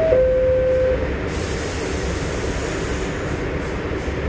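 Two-note door-closing chime of a New York City subway car: the higher note ends just at the start and the lower note follows, ending about a second in, over the stopped car's steady hum. A hiss follows for about two seconds. The doors stay open because they are being held.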